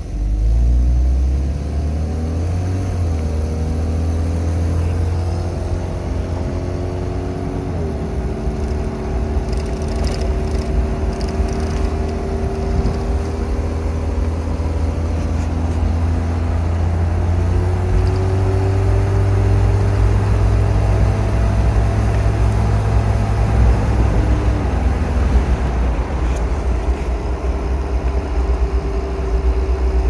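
A 1993 Toyota Land Cruiser's engine and exhaust, fitted with cheap aftermarket catalytic converters, heard from inside the cab while driving. A deep steady drone whose engine note climbs and drops back several times as it pulls away and accelerates, with a surge about a second in.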